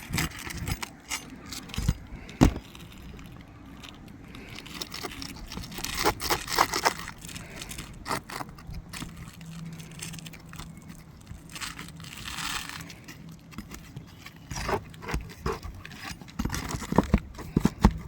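Roof snake worked under asphalt shingles to pry out roofing nails: scraping and crackling of the shingles, with sharp metal knocks and clinks. The loudest knock comes about two and a half seconds in, and a run of knocks comes near the end.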